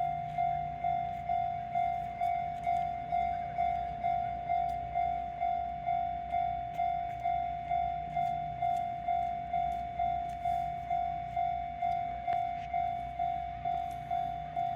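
Railway level-crossing warning bell ringing steadily at about two strikes a second, each strike a single clear tone that fades quickly, over a low rumble.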